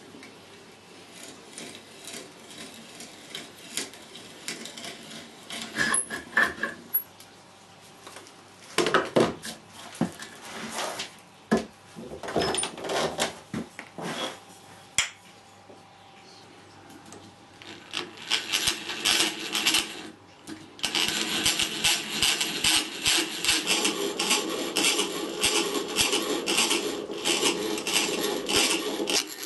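Boring holes in a small wooden handle. Light scraping of a brace and auger bit comes first, then a run of knocks and clatters of wood and tools on the workbench around the middle. The last ten seconds or so are a dense, rhythmic rasping of a drill bit cutting into the wood.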